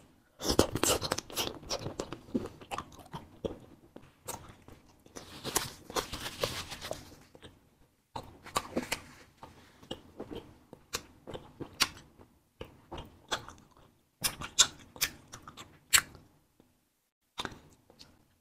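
Close-miked mouth sounds of eating a fruit-filled wax candy: biting and wet chewing in scattered short clicks and crackles, with brief quiet pauses.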